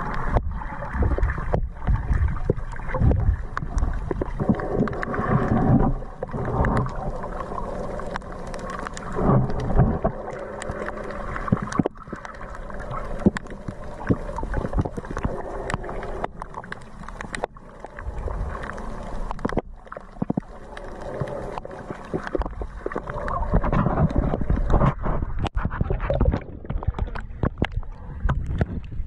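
Muffled underwater water noise from a camera held by a snorkeler, rising and falling unevenly, with many scattered sharp clicks.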